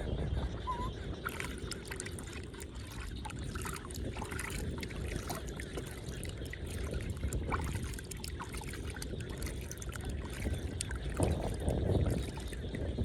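Water splashing and trickling over a steady low rumble, with scattered small knocks.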